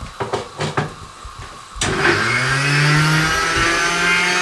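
A few light knocks, then about two seconds in an electric blender motor starts suddenly, its pitch rising as it spins up, and runs steadily, grinding onion, tomato, ginger and garlic with a little water into a fine paste.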